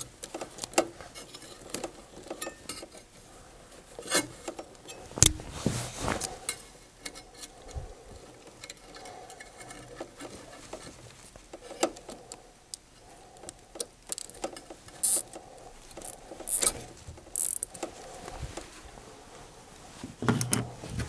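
Small clicks and rustles of a wire harness being handled, with a few short sharp rasps of a plastic zip tie being pulled tight through its lock about three-quarters of the way through.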